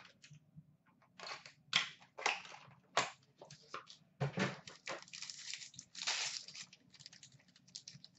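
Hockey card box packaging and pack wrapper being torn and crinkled open by hand: a run of irregular short ripping and rustling noises.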